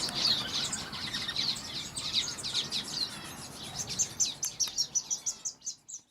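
Many small songbirds chirping and twittering at once, a dense chorus of quick falling chirps. From about four seconds in, a run of short, high repeated notes comes through at about five a second, then the sound fades out.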